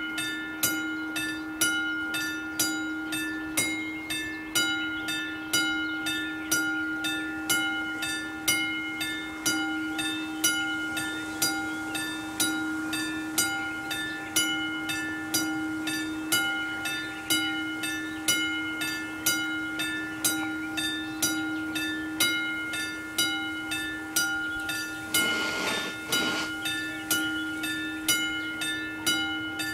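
Level crossing warning bell on an AŽD 71 signal, struck in a steady, even rhythm with each stroke ringing on: the crossing is warning that a train is approaching. A brief rush of noise breaks in near the end.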